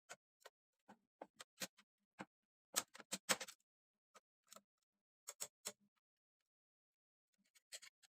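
Irregular sharp clicks and taps of hard parts being handled, about a dozen spread out, with a quick louder cluster about three seconds in.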